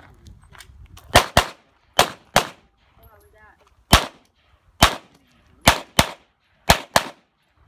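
Glock 34 9mm pistol firing ten shots, mostly in quick pairs: two pairs in the first half, two single shots, then two more pairs near the end.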